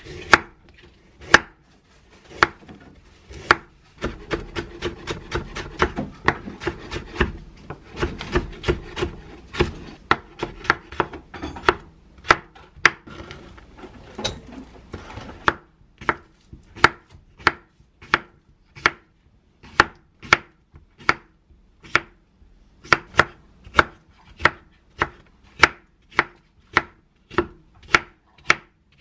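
Kitchen knife cutting vegetables on a wooden cutting board. First come a few single slices through carrot, then a fast, dense run of chopping strokes from about 4 to 15 seconds in, then steady strokes about two a second while slicing cucumber.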